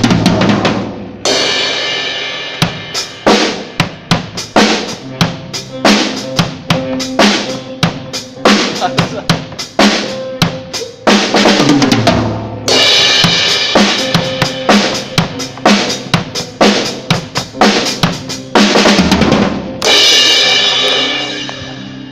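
Drum kit played at a sound check: bass drum, snare and rimshots in a steady run of strokes, with cymbal crashes washing over them near the start, about halfway through and again near the end.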